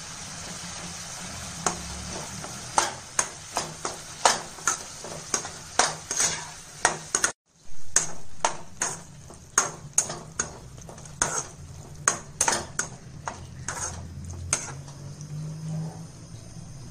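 Metal spatula stirring raw-mango pieces and coconut-curd paste in a nonstick frying pan, with irregular clicks and scrapes of metal on the pan over a faint sizzle as the mixture sautés.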